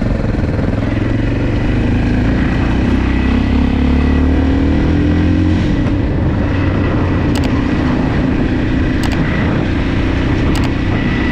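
Motocross motorcycle engine running under way, rising in pitch over the first few seconds as the bike speeds up, then holding a steady pace.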